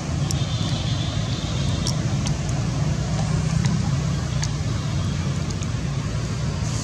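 Steady low background rumble with a few faint scattered clicks.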